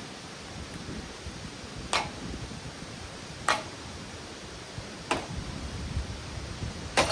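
Four sharp metallic strikes on a ceiling fan, about a second and a half apart, the last one the loudest and leaving a short ring.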